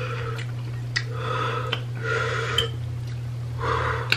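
Forks clinking and scraping against ceramic bowls of spicy instant noodles, with several short hissy mouth sounds of eating or breathing in between, over a steady low hum.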